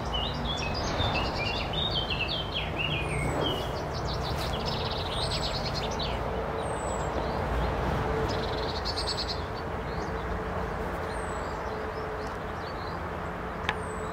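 Garden birds singing: a thin, high descending call repeated about every second and a half, with chirping phrases and short rapid trills in between, over a steady low background hum of outdoor noise. A single sharp click near the end.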